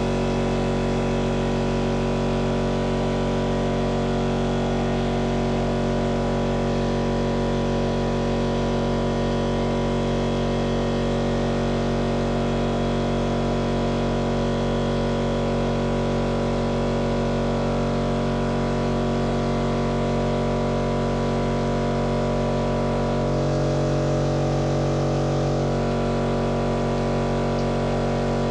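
Milling machine running steadily, its motor and spindle giving a constant hum, while a seized broken bolt is machined out; the sound grows a little louder for a few seconds near the end.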